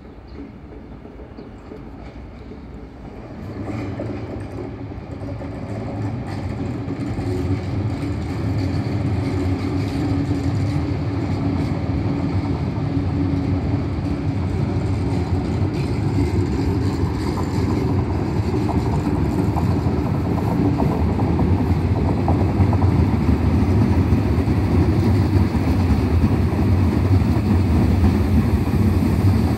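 Renfe Cercanías electric commuter train approaching and passing close by. The sound of its wheels on the rails and a low hum grow steadily louder from a few seconds in.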